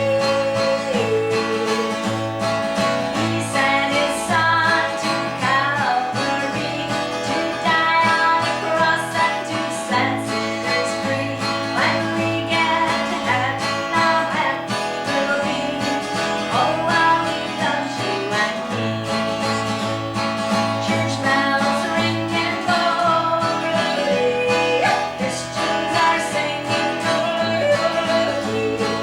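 Live country band music: acoustic guitar and other string instruments over a moving bass line, playing steadily.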